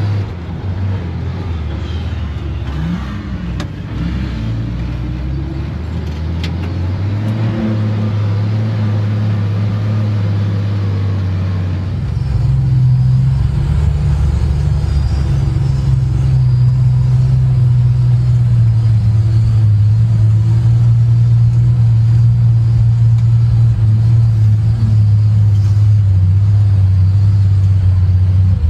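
Engine of a vintage off-road wrecker truck running as it drives up a dirt hill, heard from inside the cab. Its note shifts a little in the first seconds, and about twelve seconds in it steps up and runs louder and steady.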